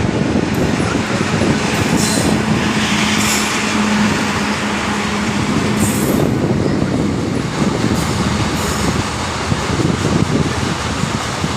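Indian freight train passing: the continuous noise of wagons rolling over the rails, with a steady low hum from about one to six seconds in.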